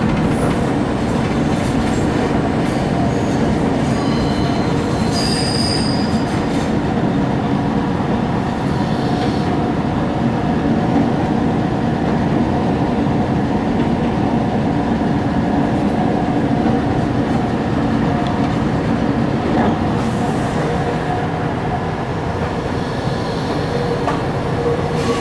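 Suburban electric train running on a mountain line, heard from inside the carriage: a steady rumble of wheels on rail and motors, with brief high-pitched wheel squeals on the curves about four to six seconds in.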